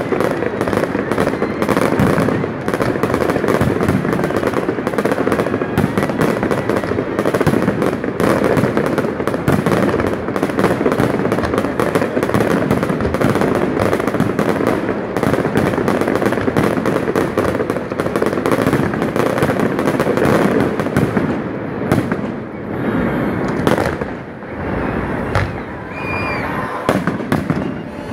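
Fireworks display: a dense, continuous barrage of bangs and crackling from many aerial shells bursting, thinning out to fewer, separate bangs about three quarters of the way through.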